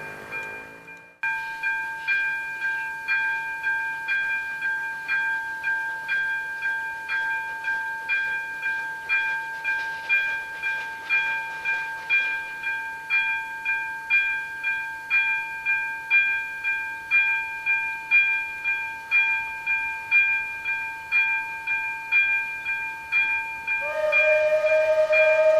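Electronic level-crossing warning bell ringing in a steady rhythm of about two strikes a second. Near the end, steam locomotive 433.002's whistle comes in over it with one long, loud call.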